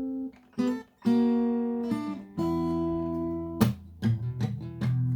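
Acoustic guitar strumming chords in a stop-start pattern, some chords left to ring and others cut short.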